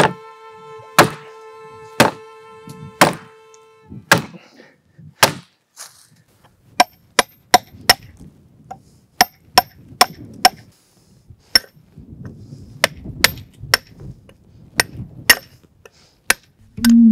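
A held violin note over knocks about once a second in the first few seconds. Then a hammer drives a steel chisel into a stone block: sharp, ringing strikes, about two a second.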